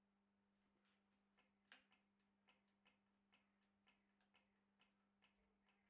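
Faint, regular ticking, a little more than two clicks a second, starting about a second and a half in, over a steady low hum.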